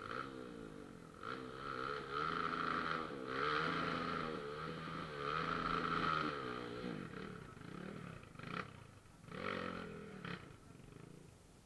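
Trail motorcycle engine being revved, its pitch rising and falling several times over a few seconds, then two shorter revs near the end.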